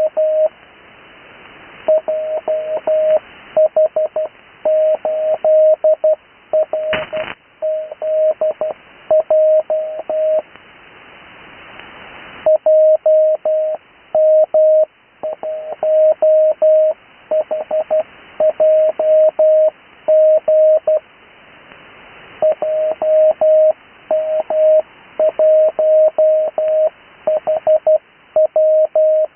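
Morse code (CW) on a single steady tone, keyed in dots and dashes at 12 words per minute in standard spacing, heard through an HF receiver over band hiss. A short crackle comes about seven seconds in.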